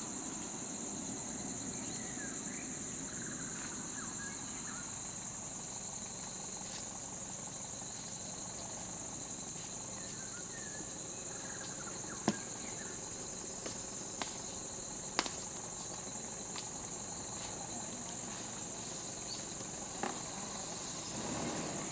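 Insects keep up a steady, high-pitched drone, with faint short chirps over it. Four sharp clicks come in the second half, the first of them the loudest.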